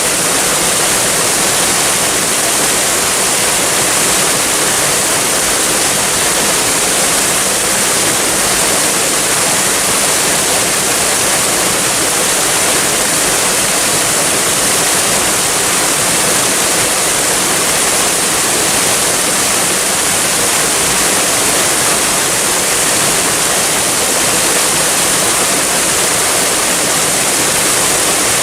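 Waterfall: water falling and rushing in a steady, loud hiss with no change.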